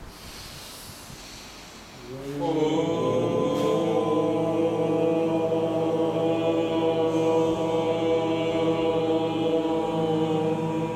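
A man chanting a long, held "Om" on one steady low pitch, starting about two seconds in with a brief rise into the note; the open vowel closes toward a hum near the end.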